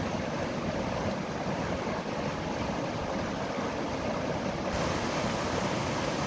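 Small mountain river rushing over rocks in white-water rapids: a steady, even rush of water.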